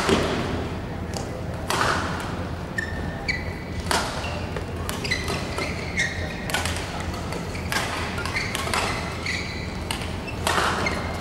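A badminton rally: rackets strike the shuttlecock about seven times, a sharp crack every one to two and a half seconds, with short high squeaks of the players' shoes on the court mat between the shots.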